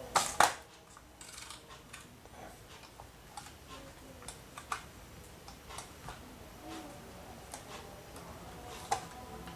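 Kenko heavy-duty 12/13 stapler being handled: its metal arm clacks and a thick stack of paper is shifted into place under it. Two sharp clacks near the start, then light taps and paper rustling, and another clack near the end.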